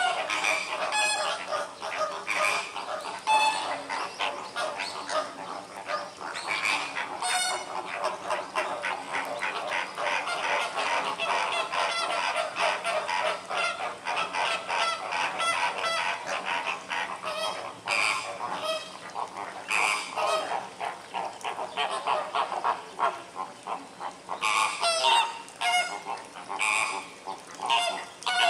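A flock of flamingos calling: a dense, continuous chatter of many overlapping calls, with a few louder single calls standing out in the second half.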